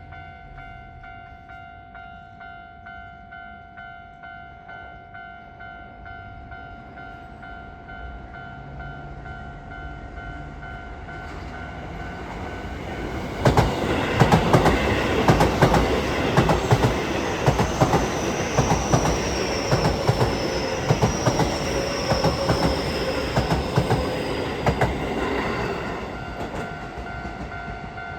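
Level-crossing alarm ringing in an even repeating beat. About halfway through, a Keio 5000 series electric train passes, its wheels clattering over the rail joints, with a high whine that falls slowly. As the train clears near the end, the crossing alarm is heard again.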